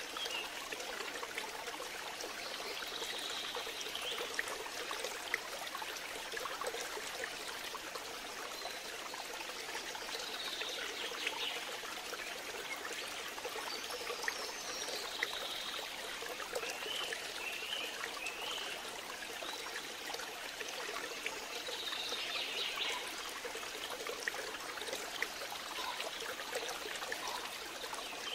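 Steady sound of running water, like a stream, with short high chirps every few seconds.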